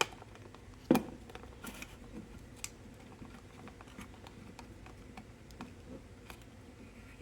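Small clicks and ticks of hands working a roll of 620 film into a Kodak Brownie Hawkeye, threading the film's paper backing onto the take-up spool, with a sharp click about a second in.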